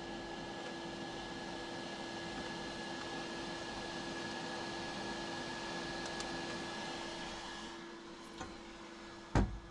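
Bambu Lab X1 Carbon 3D printer's fans running with a steady hum and a faint high whistle while the print is paused; the upper hiss drops away about eight seconds in. Near the end, one sharp thump as the printer's glass front door is shut.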